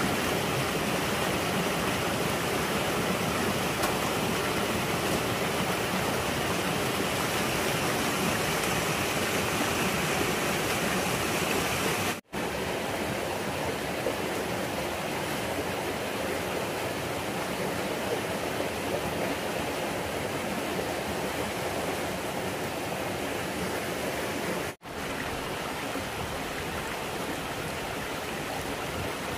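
Steady rushing of running water, an even noise with no rhythm, cut off for an instant twice, about 12 seconds in and near the 25-second mark, then resuming slightly quieter each time.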